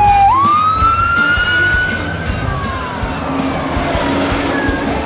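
Fire engine siren wailing. Its pitch swoops up a third of a second in, holds high and slowly sinks, then swoops up again near the end.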